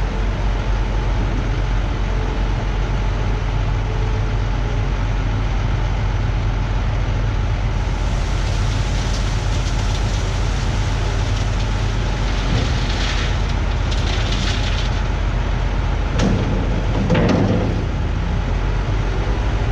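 Dump truck engine running steadily at a low hum. A hiss comes in midway and fades, and two thumps come near the end.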